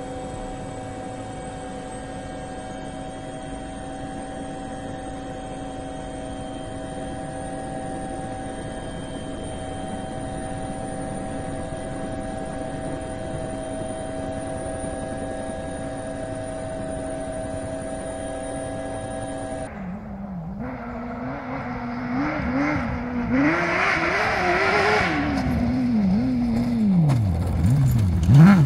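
Quadcopter drone's propellers giving a steady hum with several held whining tones. About twenty seconds in, this cuts off to a crosskart's engine revving up and down, louder near the end.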